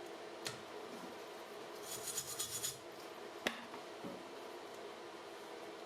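Faint steady hum with a few sharp single clicks and a short burst of quick rattling clicks about two seconds in, like small objects being handled.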